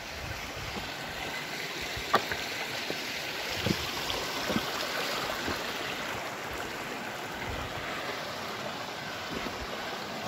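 Shallow mountain creek running over rocks, a steady rushing of water, with a few sharp clicks of loose stones knocking underfoot.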